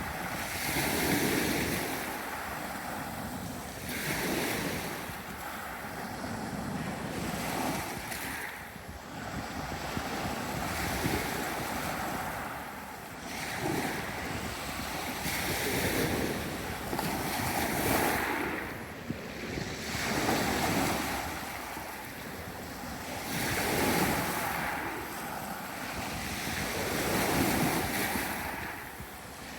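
Sea waves breaking and washing on a beach, the surf swelling and falling back every two to three seconds.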